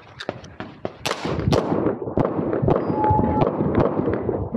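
A rapid string of pistol shots, several a second, sharp cracks with echo filling the gaps between them.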